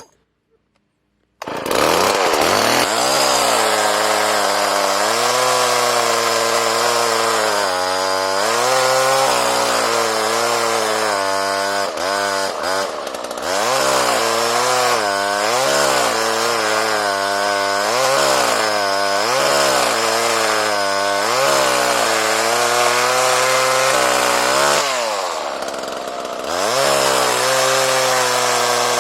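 Homelite Super 2 26 cc two-stroke chainsaw engine, coming in suddenly after a second or so of silence and then running hard, its engine speed rising and falling again and again. Near the end it drops low briefly before speeding up again.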